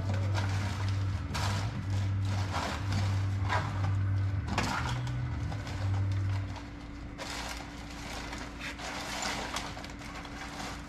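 Tools and metal parts clattering in short bursts as someone rummages through a rolling toolbox. Background music with a low bass line plays under it and stops about six and a half seconds in.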